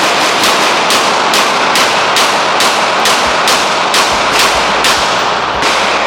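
Rapid gunfire: a steady string of shots, about two a second, over a loud, continuous wash of echo and noise.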